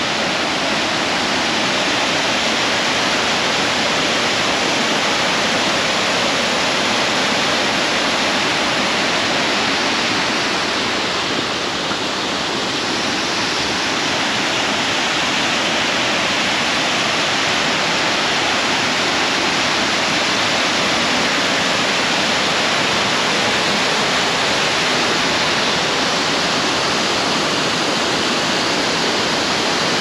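A 70-foot waterfall rushing: a loud, steady wash of falling water.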